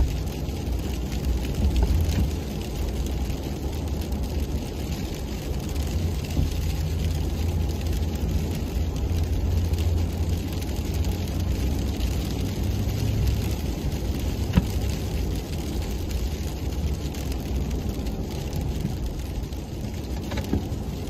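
Plow truck driving, heard from inside the cab: a steady low engine and road rumble, with one sharp knock about two-thirds of the way through.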